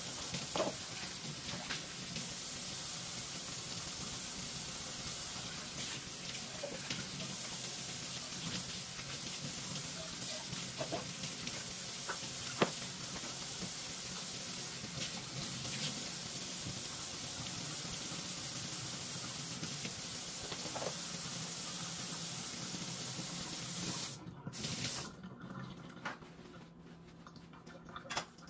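Kitchen faucet running steadily into a sink while dishes are washed, with a few light clinks of cookware and dishes. About four seconds before the end the steady water sound cuts off, leaving a few brief splashes.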